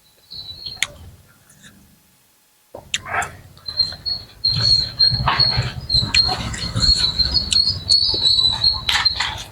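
A cricket trilling in one steady high note from about four seconds in, over close eating sounds: chewing, and clicks of the mouth and utensils. The first couple of seconds are nearly silent apart from a brief high note and a few clicks.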